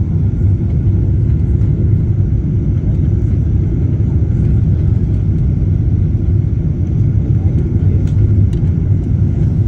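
Steady low rumble of jet engines and rushing air heard inside an airliner cabin as it descends to land.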